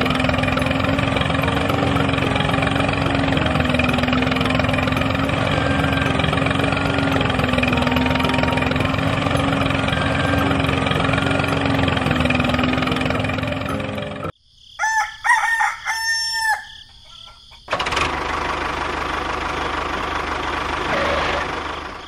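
A small motor runs steadily with a low hum as the miniature tractor drags its disc harrow through sand. About fourteen seconds in it cuts off sharply and a rooster crows for a few seconds. Then a steady motor-like noise returns.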